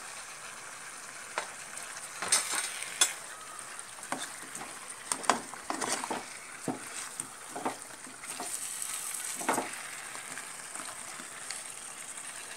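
Spatula stirring and scraping thick goat-head masala in a non-stick pan, with irregular scrapes and knocks over a steady sizzle.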